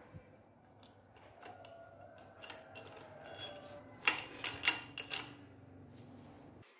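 Long steel bolt being slid through the holes of a steel engine-mount bracket, metal clicking and scraping on metal, with a cluster of sharp ringing clinks about four to five seconds in.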